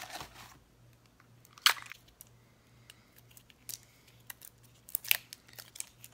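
Fingers picking at the plastic wrapping on a small item: scattered crinkles and clicks, with a sharp crackle a little under two seconds in and a cluster of them about five seconds in.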